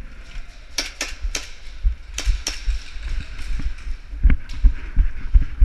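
A few sharp cracks of airsoft shots, spaced unevenly in the first couple of seconds, then quick running footsteps thudding about three times a second.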